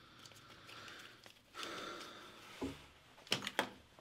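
Faint handling of a removed serpentine drive belt: a breath through the nose about a second and a half in, then a few light knocks near the end as the belt is laid down on the engine.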